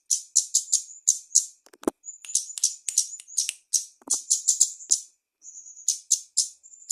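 Female kemade bird singing in the rapid 'konslet' style: a quick run of sharp, high chirps broken by short buzzy trills, with a single knock about two seconds in.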